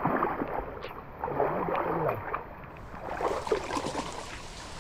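Water sloshing and splashing around the legs of a person wading through a flooded stream, with scattered small splashes and knocks.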